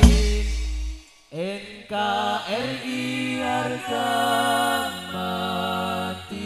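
Hadrah ensemble's drums and bass stop on a final beat whose low boom dies away about a second in. After a brief gap, male voices sing a slow, drawn-out sholawat melody with vibrato and no drumming.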